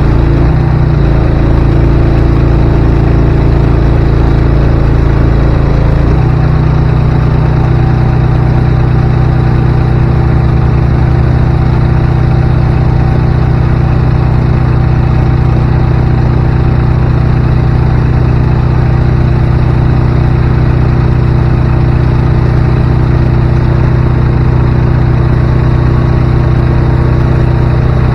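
A vehicle engine running steadily, its note changing about six seconds in.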